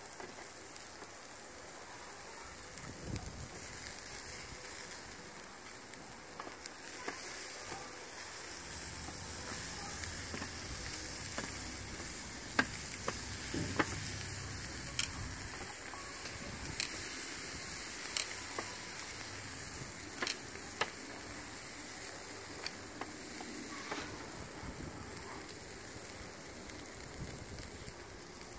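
Meat sizzling on a charcoal kettle grill: a steady hiss with sharp pops now and then, busiest around the middle.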